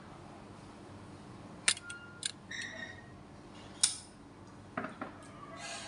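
A few sharp clinks of a utensil against a ceramic plate of cut papaya, some leaving a brief ringing tone, as the fruit is picked from the plate and the plate is handled.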